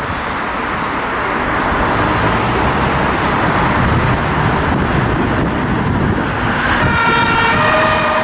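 Busy city street traffic, a steady rumble of passing cars and vans. Near the end, a fire service vehicle's two-tone siren (Martinshorn) starts, alternating between two pitches.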